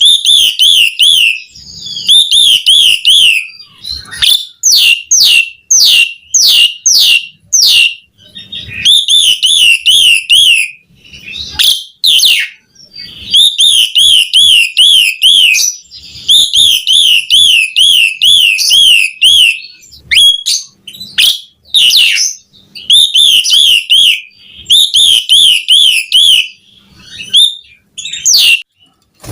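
Asian pied starling singing loudly. Phrases of fast, wavering warbled trills alternate with runs of sharp whistled notes, each sliding quickly up or down, about two a second.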